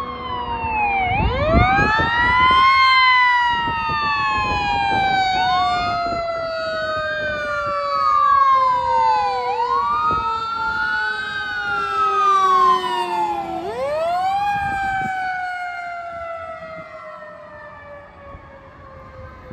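Fire engine on an emergency run, its siren wailing up and down about every four seconds over a second siren tone sliding slowly down in pitch, with a heavy low rumble about two seconds in; the sirens fade near the end as it drives away.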